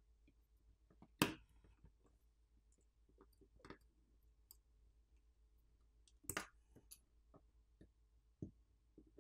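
Scattered sharp clicks and light taps of small tools and parts while a smartphone is being taken apart. The loudest click comes about a second in, a double click follows around six seconds in, and quieter ticks fall in between.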